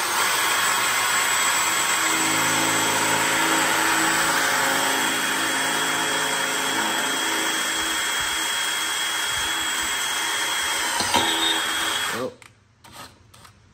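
DeWalt 20V cordless drill running steadily as its bit bores through the thin steel of a battery box, stopping suddenly near the end.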